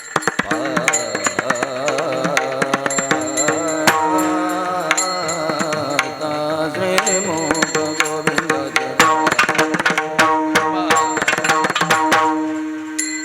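Varkari kirtan music: mridang drum strokes, densest in the second half, under a wavering sung melody and a steady held drone note.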